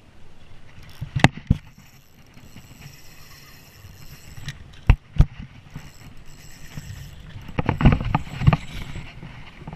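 A few sharp knocks as a spinning rod and reel are handled, then a quick run of footsteps on the wet sandy creek bank about eight seconds in.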